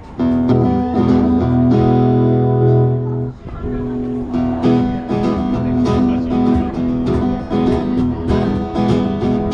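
Guitar playing the intro of a country song in the key of E: a chord rings out for about three seconds, then a steady strummed rhythm follows.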